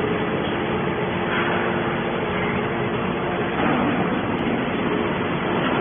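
Hydraulic metal baler machinery running: a steady, dense mechanical noise with a faint constant hum.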